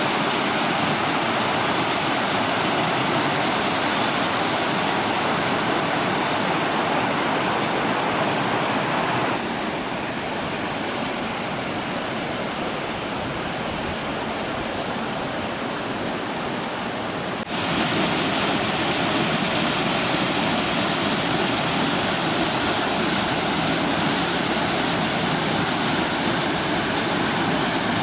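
Steady rush of a stream's waterfall: a full, even hiss of falling water. It drops a little quieter about a third of the way in, then comes back abruptly to full strength past the middle.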